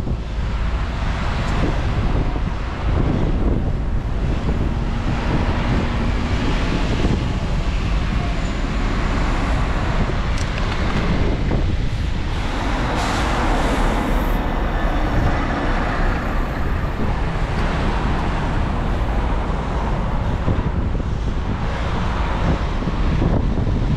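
Road traffic heard while riding, over a steady low rumble of wind on the microphone. A passing vehicle swells up around the middle.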